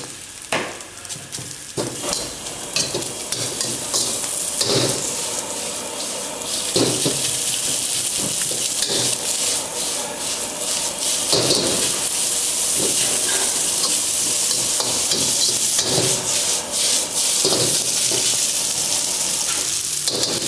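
Rice and vegetables sizzling in a hot wok while being stir-fried, with a metal wok ladle repeatedly scraping and knocking against the pan. The sizzle grows louder after about six seconds.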